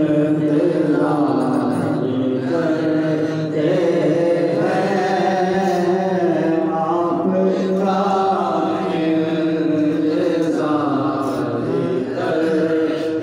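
A man singing a naat, a devotional poem, into a microphone, in long phrases of held, wavering notes.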